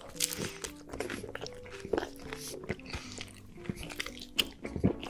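Background music with held notes, over close-miked eating sounds: chewing and crunching with many small sharp clicks.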